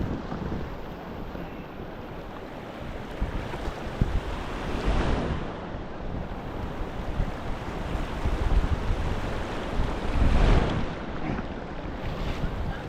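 Steady rush of flowing river water with wind buffeting the microphone in gusts, strongest about a third of the way in and again near the end.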